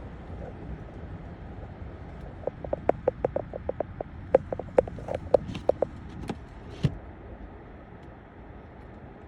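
Steady low rumble of a car driving, with a run of sharp, irregular clicks, several a second, lasting about four seconds in the middle.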